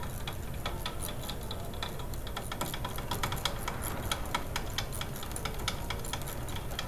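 Hand tools being worked on a VW ALH TDI engine: a run of light, irregular metallic clicks, several a second, over a low steady hum.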